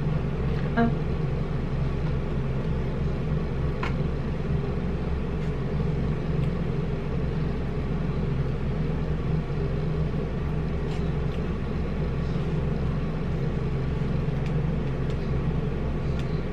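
Steady low background rumble, with a few faint mouth clicks and smacks of someone eating oxtail.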